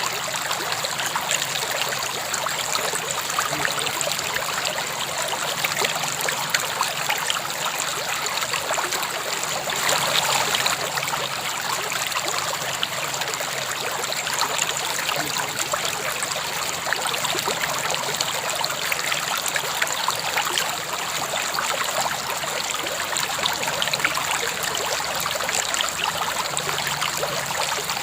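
A river or stream flowing over rocks: a steady rush of water with fine splashing and trickling, swelling a little about ten seconds in.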